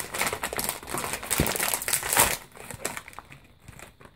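Crinkly foil blind-bag toy packaging being pulled open and handled, a busy rustling that is loudest for the first two seconds or so and then thins out to occasional softer crinkles.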